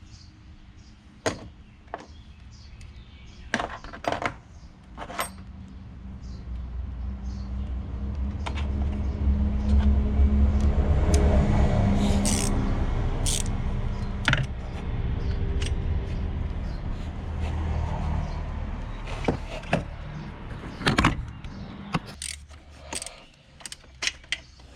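Metal hand tools clinking and knocking against engine parts in scattered sharp taps. A vehicle engine rises in the background, loudest about halfway through, and fades away again.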